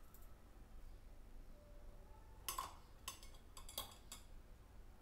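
Light clinks of a stainless steel bowl and wire tea strainer being handled. A few quick knocks come in a cluster from about two and a half seconds in.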